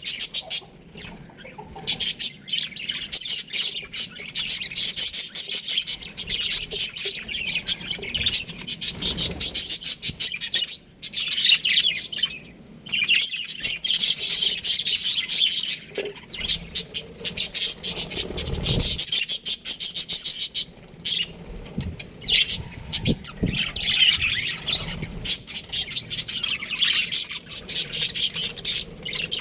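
A flock of budgerigars chirping and chattering in an aviary, many quick overlapping high chirps and squawks with only brief lulls.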